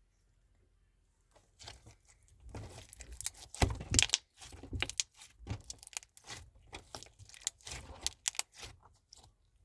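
Crunchy slime being squished and worked by hand, giving a dense run of crackly, popping clicks that starts about a second and a half in and is loudest around four seconds in.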